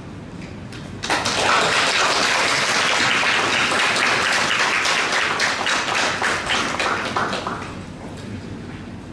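A room full of people applauding, starting suddenly about a second in and dying away near the end.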